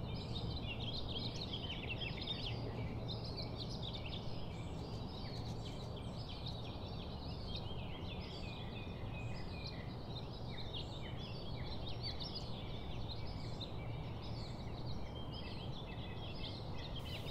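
Many birds chirping and calling together, a dense irregular chorus of short high chirps, over a steady low background hum.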